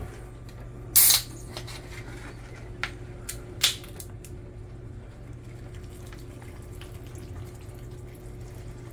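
A can of Guinness Draught stout cracked open with a short loud snap about a second in, a few light clicks, then the stout poured in a steady stream onto vegetables in a ceramic slow cooker.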